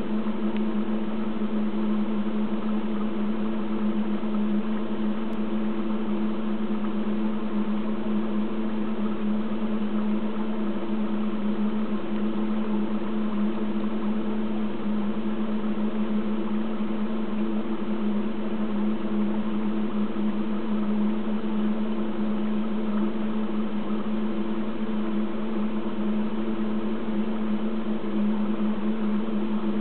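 A steady low machine hum that does not change.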